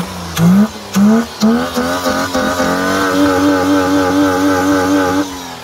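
Ford AU Falcon engine with the bonnet up, revved in about four quick blips and then held at a steady high rev for a couple of seconds before dropping back. It is running solid again, its lean mixture just tweaked.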